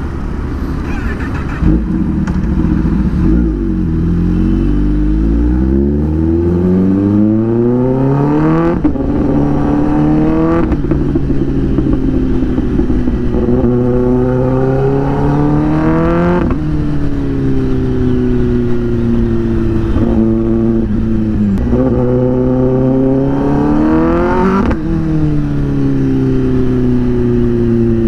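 Kawasaki ZX-10R inline-four with an SC-Project aftermarket exhaust, pulling away from idle and accelerating through traffic. The engine note climbs slowly at first, then rises and falls over and over, dropping sharply at each gear change or roll-off about five times.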